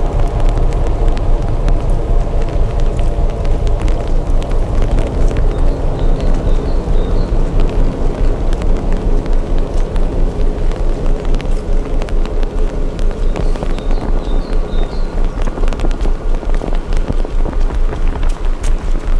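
Heavy rain falling, with fine ticks of drops throughout, and wind rumbling on the microphone. Under it, the loudness swells and dips about twice a second, in the even rhythm of a person walking.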